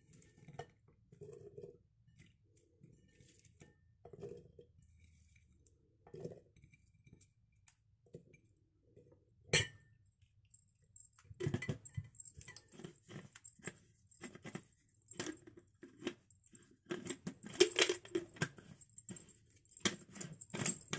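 Quiet rustling of hands picking up fresh red chilies from a ceramic plate, then a sharp click about ten seconds in, followed by a run of quick taps and clinks of chilies and fingers against a glass jar, busiest near the end.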